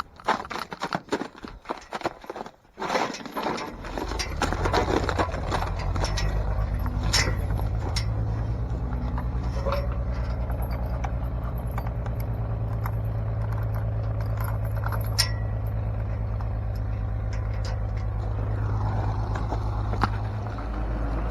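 Metal clinking and scraping for the first few seconds, then a vehicle engine running steadily from about three and a half seconds in.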